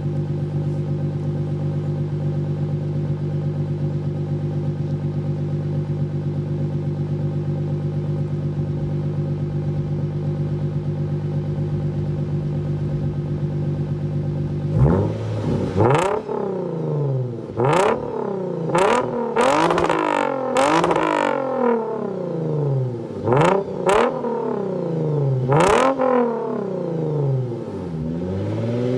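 Lexus IS350's 3.5-litre V6, breathing through a Tsudo mid-pipe with the rear mufflers deleted, idling steadily at operating temperature. About halfway through, it is revved repeatedly in a string of quick blips, each rising and falling in pitch.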